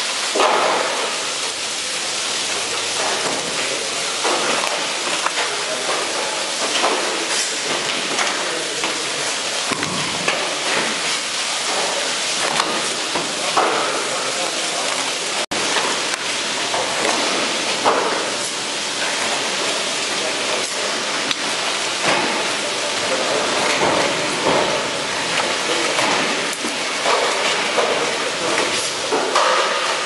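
Water running and spraying steadily onto a wet stainless steel work table, with irregular wet scrapes, slaps and knocks as large squid mantles are scrubbed by gloved hands.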